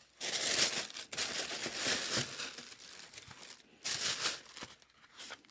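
Tissue paper in a shoe box rustling and crinkling as a running shoe is pulled out of it, in two spells with a short pause between.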